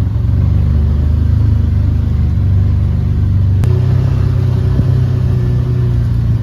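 Portable generator engine running steadily, with one sharp click about three and a half seconds in.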